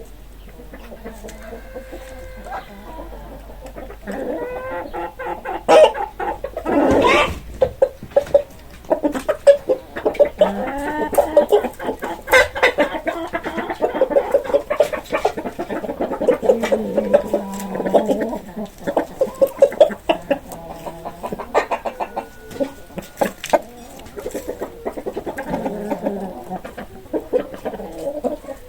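Several chickens clucking and squawking in many short, repeated calls, with a louder drawn-out squawk about seven seconds in.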